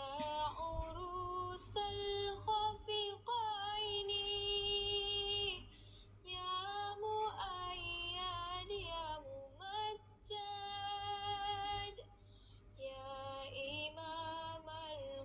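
A woman singing a slow melody in long held, wavering notes, phrase after phrase, with short pauses about six and twelve seconds in.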